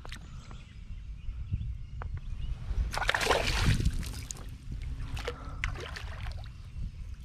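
Water splashing and sloshing as a hooked fish thrashes at the surface beside a kayak while a landing net is swept through the water. The splashing is strongest about three to four seconds in, over a low steady rumble.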